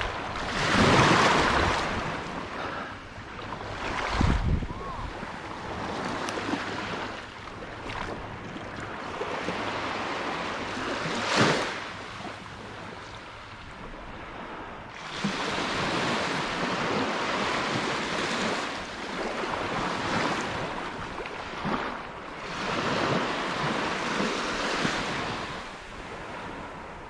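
Small waves breaking and washing up onto a sandy beach at the water's edge, the hiss swelling and fading with each wash every few seconds. Wind buffets the microphone, loudest about four seconds in.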